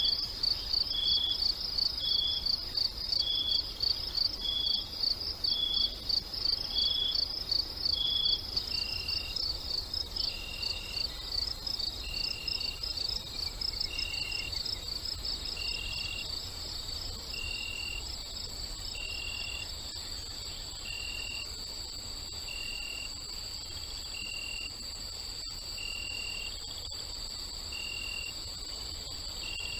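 Chorus of crickets chirping in fast pulses, with a second insect calling a short note about once a second. About eight or nine seconds in, the chorus changes: a steady high whine joins and the pulsing grows smoother.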